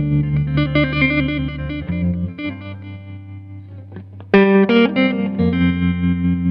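Background music: picked, ringing notes over a low held bass note. It grows quieter about two seconds in, and a loud new chord comes in after about four seconds.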